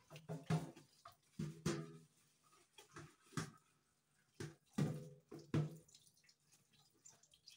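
Soup boiling in a large covered stainless-steel stock pot: irregular bubbling bursts.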